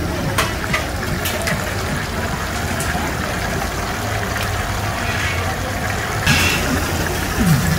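Chicken pieces deep-frying in a large wok of hot oil: a steady bubbling sizzle, with a brighter hiss about six seconds in.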